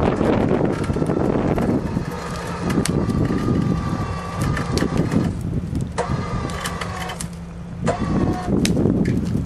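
ATV electric winch reeling in its cable under load, the motor whining in spurts: it cuts out about five seconds in and starts again a second later, over a steady engine hum. Scattered sharp cracks and rustling come from the stump and brush being dragged.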